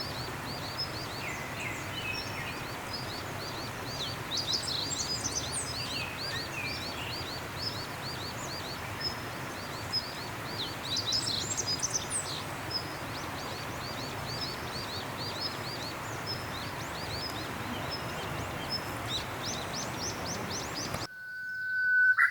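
Several small birds singing and calling, with rapid series of short high notes over a steady outdoor hiss. Near the end the outdoor sound cuts off and a loud tone rises in pitch.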